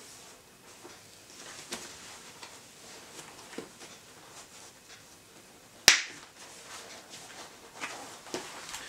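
Hands working the padded liner back into a motorcycle helmet: light rustling and scattered small clicks, with one sharp snap about six seconds in.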